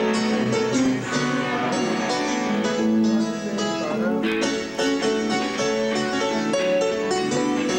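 Roland XP-50 synthesizer played with both hands: continuous keyboard music with many notes in quick succession, in a piano-like tone.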